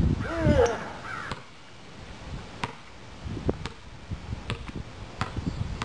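A brief wavering cry near the start, then a basketball bouncing several times on a concrete driveway with short sharp smacks.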